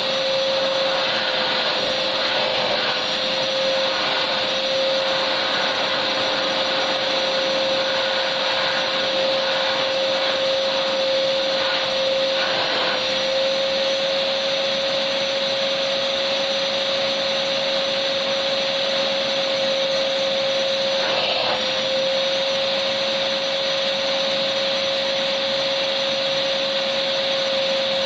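Vacuum cleaner running steadily: a constant rushing hiss with a steady motor whine, which dips slightly in pitch twice.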